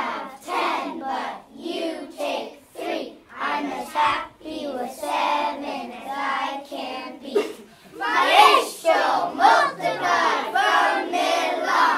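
A group of young children singing together, louder from about two-thirds of the way through.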